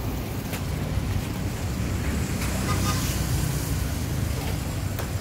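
Outdoor street ambience: a steady low rumble of road traffic and wind buffeting the microphone, with a sharp click right at the end.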